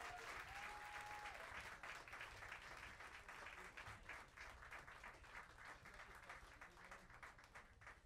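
Audience applauding, the clapping gradually thinning and fading away.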